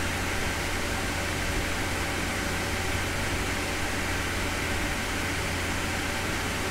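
Steady whir of racked servers' cooling fans: an even rushing noise with a low hum underneath.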